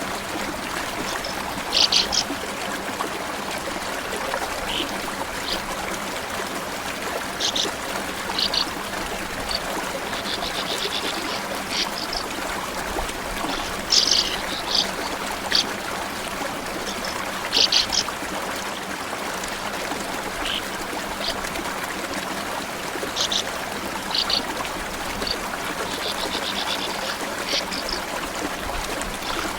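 Small river flowing steadily, with birds calling in short high chirps every second or two and a couple of brief buzzy trills.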